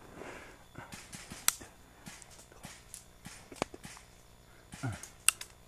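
Footsteps on a forest path of dry leaves and twigs, with scattered clicks and knocks. Two sharp cracks, about a second and a half in and near the end, are the loudest sounds.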